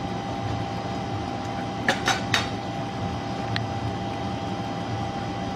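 A spatula knocking against a non-stick frying pan, three sharp knocks in quick succession about two seconds in and one lighter tap a second later, over a steady hiss.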